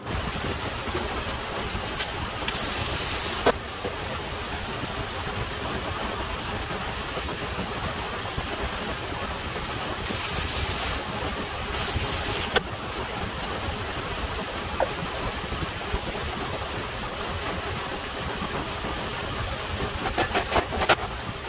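Three short bursts of arc-welding crackle, each about a second long, as steel pieces are tack-welded onto a steel beam. Under them runs a steady machine noise. A few sharp clicks and knocks come near the end.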